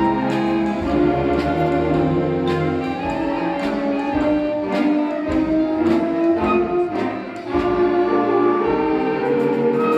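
High school symphonic band playing: wind and brass instruments holding and moving through chords, with percussion strokes at a steady beat.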